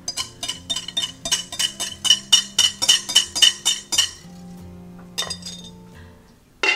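A utensil tapping and scraping against a glass mixing bowl, quick ringing clinks about four a second for around four seconds, as the last of the gravy is knocked out of the bowl. Background music plays under it and carries on alone afterwards.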